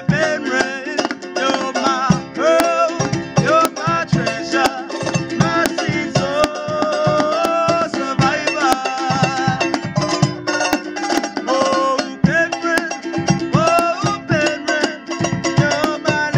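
Two ukuleles strummed in a quick, steady rhythm while men sing a Cook Islands song.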